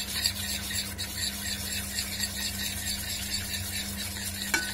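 A metal spoon stirring and scraping against the bottom of a small stainless steel saucepan, working cornflour into cold lemon juice to make a thin paste. A steady low hum runs underneath, and there is a short click near the end.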